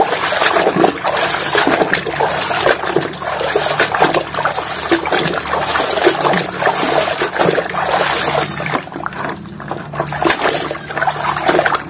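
Muddy water splashing and sloshing in a basin as plastic toy trucks are scrubbed and pushed through it by hand, in a continuous run of small irregular splashes.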